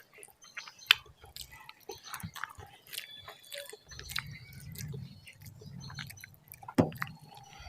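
Close-miked chewing of rice mixed with mashed vegetable bharta: wet mouth clicks and smacks throughout, with a sharp click about a second in and a louder one near the end.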